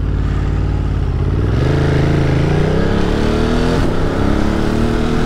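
Ducati Monster 937's V-twin engine at low revs, then pulling away under throttle: the pitch climbs from about a second and a half in, dips briefly at an upshift near four seconds, and climbs again.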